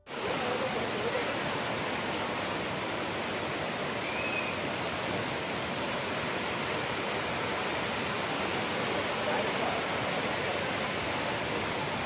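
Waterfall pouring, a steady, even rush of falling water.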